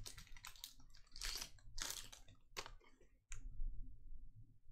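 Foil trading-card pack wrapper crinkling as it is torn and peeled off the cards, a run of irregular crackles that dies down a little past three seconds, leaving soft handling of the cards.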